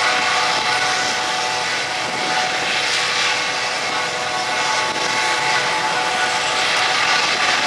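U.S. Coast Guard MH-65D Dolphin helicopter running on the ground with its rotor turning: a steady whine from its twin turboshaft engines over a steady rush of noise.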